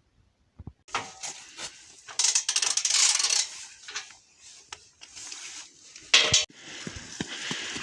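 Things being handled: scattered knocks and clatter, a longer scraping rush about two seconds in, and a loud clatter about six seconds in.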